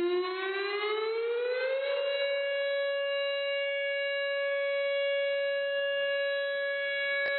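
Civil-defence nuclear-alert siren starting suddenly and winding up in pitch over about two seconds, then holding one steady, high tone full of overtones. A brief click sounds near the end.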